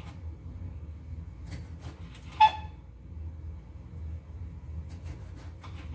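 Kitchen knife slicing a tomato on a wooden chopping board: a few scattered knocks of the blade on the board, and one louder short ringing clink about halfway. A steady low hum runs underneath.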